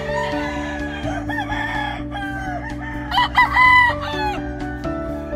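A gamefowl rooster crows once, about three seconds in, in a call of about a second, over background music with sustained chords. Fainter short calls come before it.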